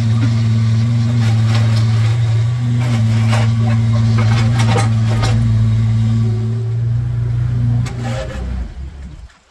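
Kubota mini excavator's diesel engine running steadily while the hydraulic boom and bucket work, with a run of metallic clicks and knocks from the arm and bucket in the first half. Near the end the engine winds down and stops: the machine is being shut off.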